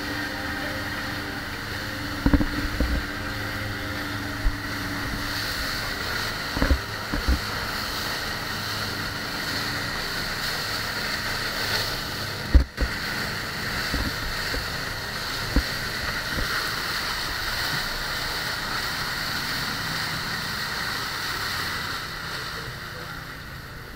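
Grady-White motorboat running underway: a steady rush of wind and water over a low engine drone, with several short, sharp thumps scattered through it.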